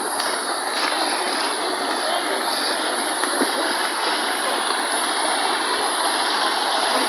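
Flowing stream water, a steady rushing that does not let up.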